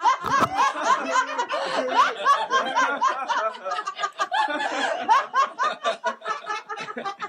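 A crowd of people laughing and chuckling at a joke's punchline, many voices overlapping.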